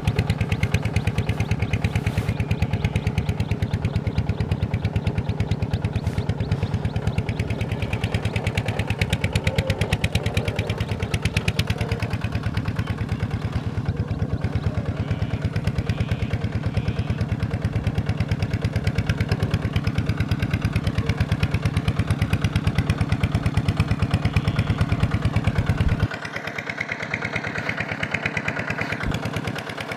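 Engine running steadily with a rapid, even firing beat. About 26 seconds in, the deep part of the sound drops away and a lighter, higher engine sound carries on.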